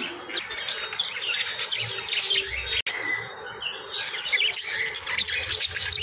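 Caged budgerigars chattering with many quick, busy chirps and squawks, the sound cutting out for an instant about three seconds in.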